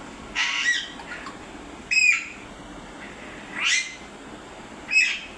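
Pet parrot squawking: four loud, harsh calls a second or more apart, one of them rising in pitch.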